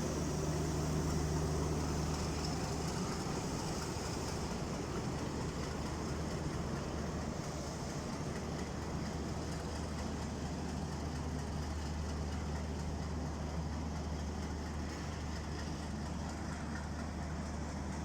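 Pakistan Railways PHA-20 diesel-electric locomotive engine running with a steady low drone.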